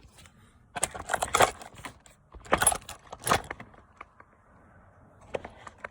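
Metallic jingling and rattling in several short bursts, like keys or a small chain being shaken, over a faint steady hum.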